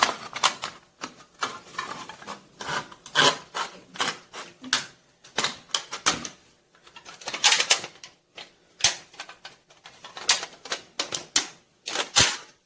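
Pocket knife cutting an aluminium soda can lengthwise: an irregular run of sharp clicks and crinkling of the thin metal, several a second, with a sharp click near the end.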